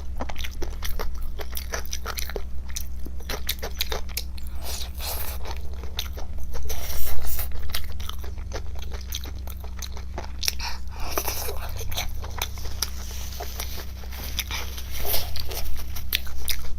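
Close-miked mukbang eating: a fast, irregular run of crunchy, wet clicks from biting and chewing, loudest about seven seconds in. Underneath is a steady low hum.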